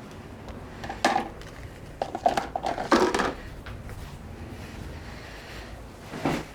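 Small hard clicks and taps of tools and parts being handled: one about a second in, a quick cluster between two and three seconds, and one more near the end.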